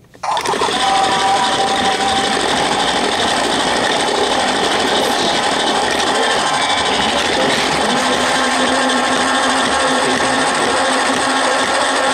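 Lego Duplo toy train's motor running steadily as it travels along its plastic track, heard close up from a camera riding on the train. It starts suddenly just after the start.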